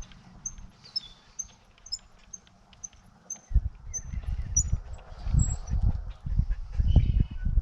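Birds chirping in short, repeated high notes throughout. From about three and a half seconds in, an old hand brace and bit boring into wood gives a loud, uneven, pulsing low grinding; the bit probably needs sharpening.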